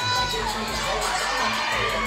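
Audience cheering and shouting, many high-pitched voices at once, over music with a repeating bass beat.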